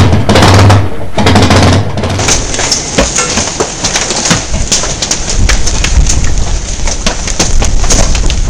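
Hailstones pelting down in a dense, irregular clatter of hard impacts, heaviest in the first two seconds. A low rumble joins about halfway through.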